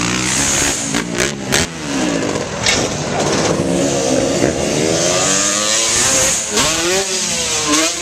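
KTM dirt bike engine revving up and down, its pitch rising and falling several times as it is ridden around. Two sharp clicks come about a second and a half in.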